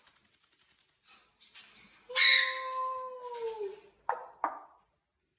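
An African grey parrot gives one loud, long call about two seconds in, holding a steady pitch that dips at the end, then two short sharp squawks. A faint rapid ticking is heard at the start.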